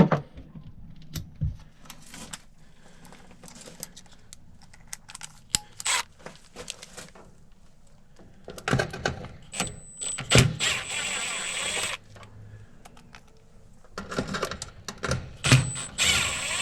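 Tools and metal parts handled inside an HVAC package unit during a limit switch swap: scattered clicks, knocks and rattles. A steady whirr runs for about a second and a half around eleven seconds in, and again briefly near the end.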